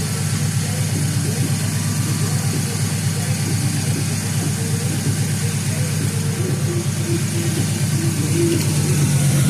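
Ford Mustang V6 engine idling steadily, left running to bleed trapped air out of the cooling system.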